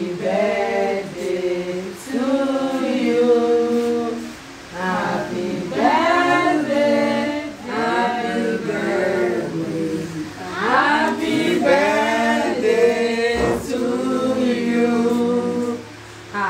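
A small group of men and women singing together without instruments, in phrases with short pauses between them.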